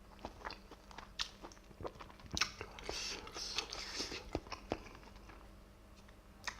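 Close-miked mouth sounds of someone chewing steamed scallops in chilli sauce: faint wet smacks and clicks, with a denser noisy stretch of slurping or breathing around the middle.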